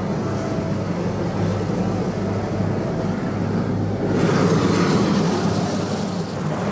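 Helicopter running, a steady drone. A louder rushing hiss joins about four seconds in.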